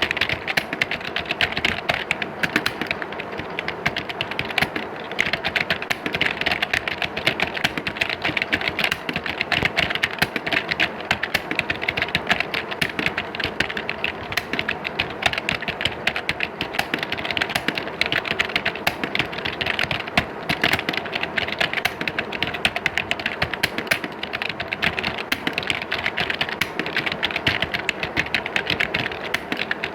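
Many computer keyboards being typed on at once, a dense, unbroken clatter of key clicks with no pauses.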